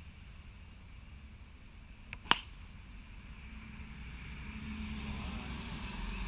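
Golf driver striking a teed ball about two seconds in: one sharp crack with a brief high ring. Afterwards a low steady hum builds, growing louder.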